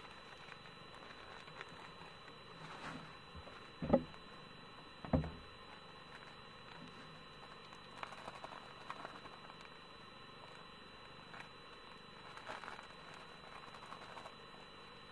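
Two dull knocks about a second apart, then scattered light crinkling and rustling of a plastic packet being handled.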